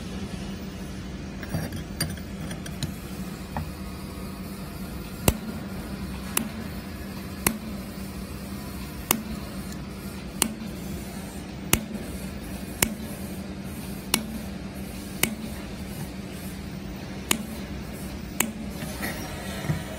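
Handheld fiber laser welding machine running with a steady hum, and sharp clicks about once a second.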